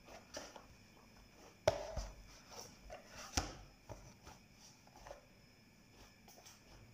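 Hands kneading dough in a plastic basin: irregular soft thumps and knocks as the dough is pressed and worked, the sharpest a little under two seconds in and again about a second and a half later.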